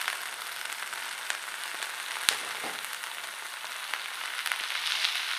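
Chopped onions and green chillies sizzling steadily in hot oil in a kadai, with a few sharp clicks, the loudest about two seconds in.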